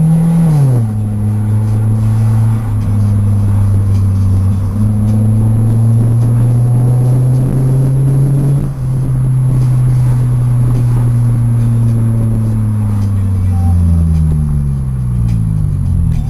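Toyota Celica's engine at high revs, dropping sharply about half a second in, then held steady at high revs, creeping slowly up, before falling away near the end.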